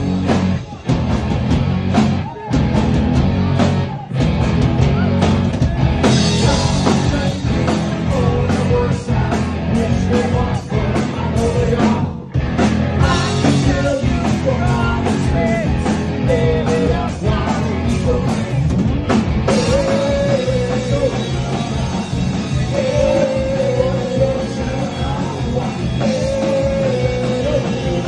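Live rock band playing loud: electric guitars and drum kit, with a singer on the microphone. The band cuts out for short stops a few times in the first seconds, and the vocal line grows stronger in the second half.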